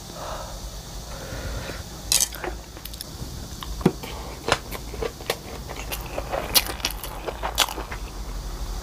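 Close-up eating sounds: chewing and crunchy bites, with pickled radish being eaten, and a string of sharp clicks of chopsticks and a spoon against dishes.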